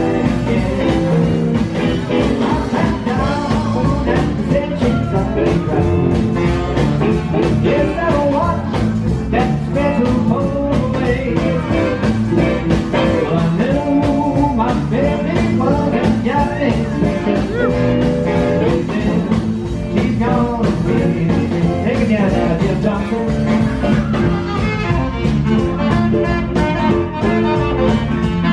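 A live swing and blues band playing: electric guitar, keyboard piano, upright bass and drums.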